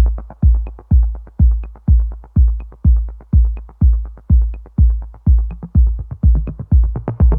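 Electronic background music: a steady thudding kick drum about twice a second, with lighter hi-hat ticks between the beats.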